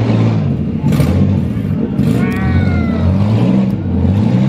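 Compact demolition derby cars' engines running and revving, their pitch rising and falling, with sharp metal knocks about a second in. About two seconds in, a brief high squeal falls in pitch above the engines.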